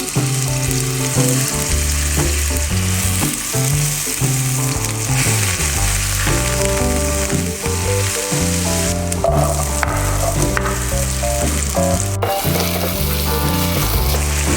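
Food sizzling as it fries in oil in a pan, being stirred, over background music with a bass line.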